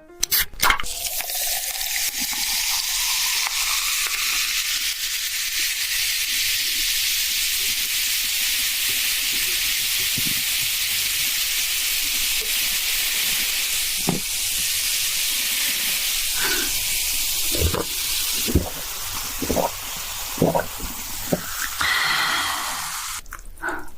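Cola poured into a glass, the pouring sound rising in pitch as the glass fills, then the steady hiss of the carbonation fizzing. A few short clicks or taps come in the second half.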